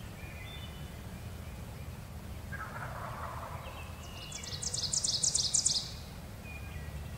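A wild turkey gobbling once, a fast rattling run of notes from about four to six seconds in.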